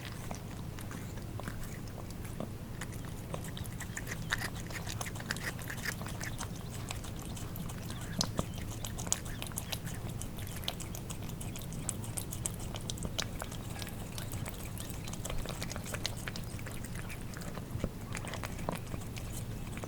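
Cats eating wet cat food: irregular wet licking, lapping and chewing clicks from their tongues and mouths, over a steady low hum.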